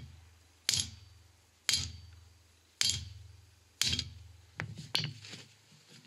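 Small sledgehammer striking a wheel bearing seated in a cast-iron hub carrier: a series of sharp metal-on-metal blows about a second apart, each with a short low ring, with two quicker blows near the end. The bearing is too tight in the hub for a 6-ton press to push out, so it is being driven the first millimetre by hammer.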